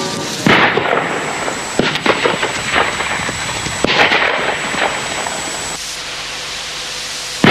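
A string of sharp bangs like gunfire and explosions over a rumbling noise, the loudest about half a second and four seconds in, easing off near the end.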